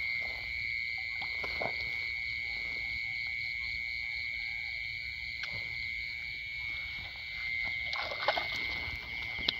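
Steady, high-pitched night chorus of frogs and insects calling, with a few brief knocks and rustles, most of them about eight seconds in.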